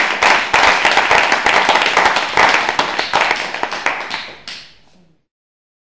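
Audience applauding: many hands clapping. The applause thins and fades from about four seconds in, then cuts off just after five seconds.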